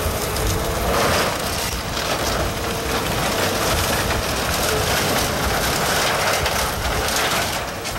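Hydraulic excavator running while its bucket crunches and drags through the splintered wood and sheet-metal debris of a collapsed building, in a continuous dense rumble and clatter.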